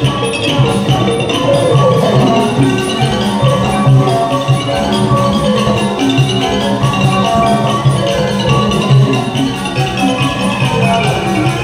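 Thai piphat mon ensemble playing, with the khong mon gong circles and other mallet instruments sounding a continuous run of struck notes.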